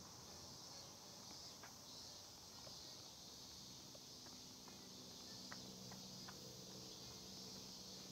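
Faint, steady high-pitched drone of cicadas in the trees, with a few soft footsteps on stone steps.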